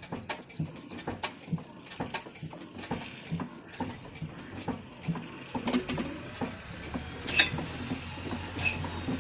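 A 22 HP stationary diesel engine running, with a steady rhythmic knocking of about three beats a second. From about halfway a low hum joins in and grows.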